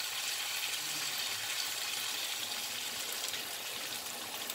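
Dry cooking wine poured from a bottle into a hot pan of potatoes in tomato sauce, with a steady sizzling hiss from the pan as the liquid goes in.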